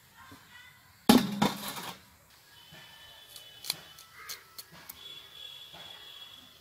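A crow caws loudly about a second in. After it come faint clicks of an onion being cut on a boti blade, with a few thin high bird calls.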